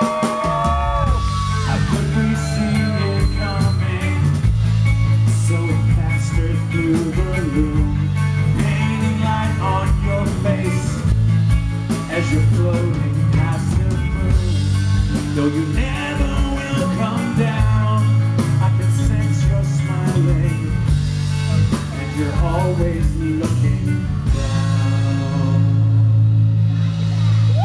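Live rock band playing electric guitar, bass guitar and drum kit, with a heavy low bass line and steady drum hits.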